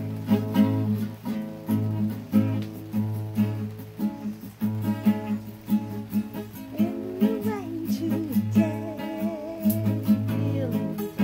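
Acoustic guitar played in a steady, repeating fingerpicked pattern with a recurring bass note. About two-thirds of the way through, a woman's voice joins in singing over it.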